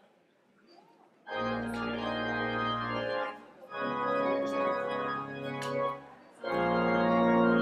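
Church organ starting the postlude about a second in: three long, held chords with short breaks between them, over faint murmur of the congregation.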